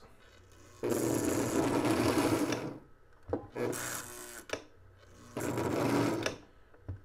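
Lionel U36C diesel's electric motor whirring on the bench with its shell off. It runs in two main bursts, about two seconds and then one second long, with short spurts and clicks between, as power is switched on and off to test whether the E unit reversing unit sticks.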